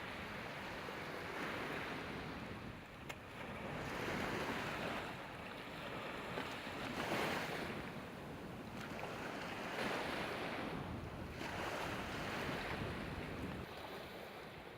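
Ocean surf breaking on the shore, the wash swelling and fading every two to three seconds, with some wind.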